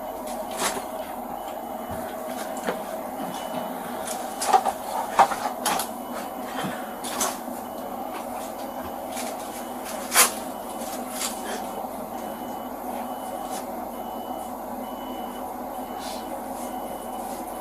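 Vehicle backup alarm beeping about once a second over a steady engine hum, clearest in the second half. A few sharp knocks come about four to six seconds in, and a louder single knock about ten seconds in.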